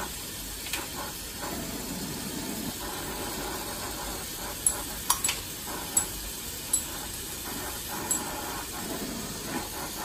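Glassworking bench torch flame hissing steadily while glass is shaped in it. A handful of sharp, light clicks come about halfway through.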